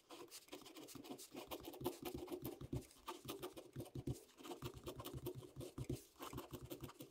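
Ballpoint pen writing on a sheet of graph paper: faint, quick scratching strokes of the tip as block letters are drawn.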